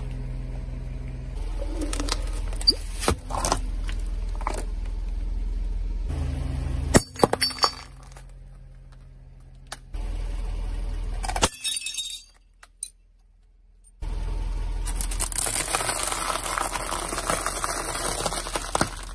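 A car tyre crushing brittle objects over a low engine hum, with sharp cracks and glassy breaking in several short takes separated by cuts. A dense crackling crunch fills the last few seconds.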